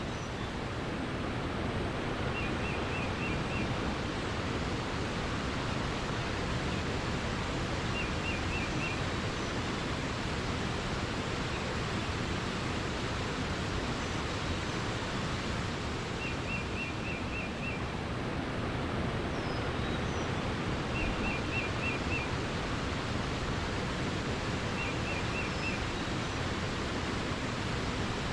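Steady rush of flowing water, with a bird repeating a short phrase of four or five quick high notes every few seconds.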